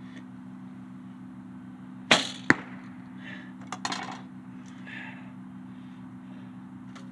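Archery gear being handled: two sharp knocks about half a second apart, followed by softer rustling and clicks as arrows are handled and nocked on the compound bow.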